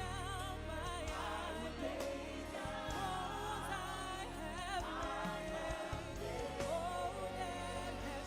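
Gospel worship song: several voices singing with vibrato over an instrumental backing with sustained low bass notes.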